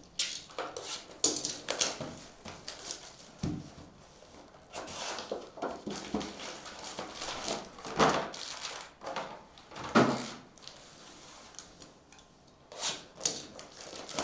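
Cardboard hobby boxes of trading cards being cut open and handled: scraping, rustling and irregular knocks, the loudest about eight and ten seconds in.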